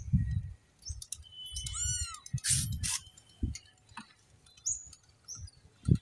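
A month-old kitten gives one thin meow, rising then falling in pitch, about two seconds in. Low bumps and a short burst of noise come just after it, and small birds chirp near the end.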